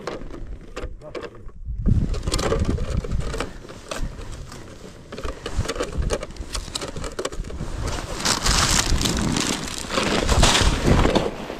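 Ice crunching and scraping as a hole is drilled through lake ice with a cordless-drill-driven ice auger. It comes in irregular crackling stretches, loudest about two seconds in and again near the end.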